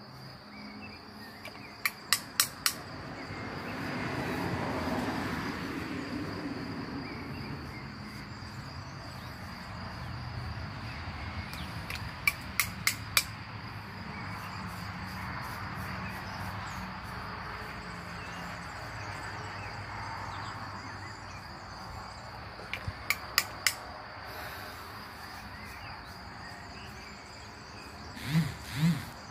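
Crickets chirring steadily in the background, with three groups of three or four sharp clicks about ten seconds apart, which are the loudest sounds.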